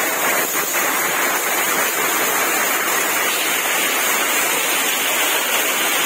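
Small waterfall cascading over rocks, a steady rush of falling water without a break.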